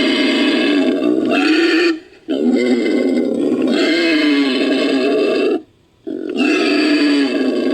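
Designed creature sound effect of a fictional dire fiddler crab, made from wild boar and crocodilian recordings: long, rough, pitched animal calls. There are three calls, each lasting a few seconds, with a short silence between them where each one cuts off abruptly.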